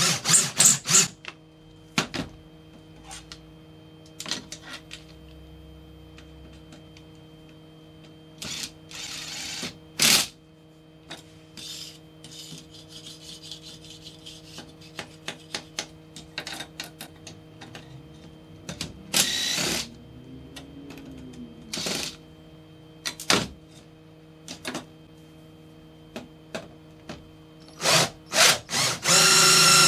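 Cordless drill driving a hole saw into a 2.3 mm black mill-scale steel plate in short bursts. There is a rapid run of clicks at the start and scattered knocks and handling clicks between cuts. Near the end comes a longer, louder run with a steady whine.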